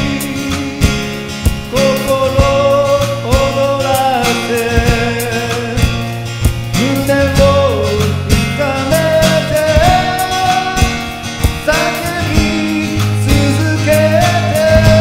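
A song: a singing voice carries a sustained, gliding melody over a band with a bass line and a regular beat.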